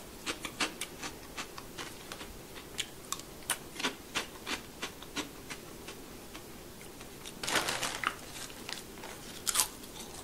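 Crisp corn and potato snack pieces being bitten and chewed, with irregular sharp crunches and crackles, and a brief rustle of the snack bag about three quarters of the way through.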